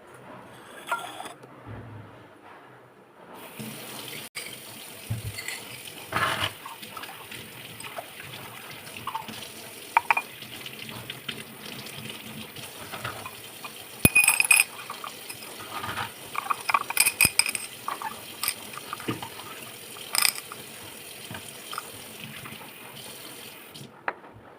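Water running from a kitchen tap into the sink, starting about three seconds in and stopping just before the end, with scattered clinks and knocks of containers.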